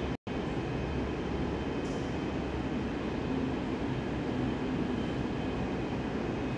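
Steady low rumble of indoor room noise, with no distinct events; it cuts out for an instant just after the start.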